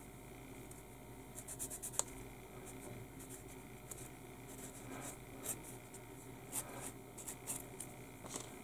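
Sanding stick rubbing a small plastic model wheel half in irregular short scratchy strokes, flattening its inside mating face, with a sharp click about two seconds in.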